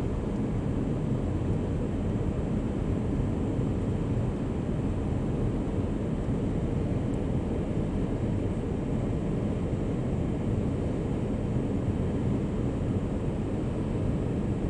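Steady cabin noise of an Airbus airliner in descent: the engines' low hum and the rush of air along the fuselage, heard from a window seat by the wing.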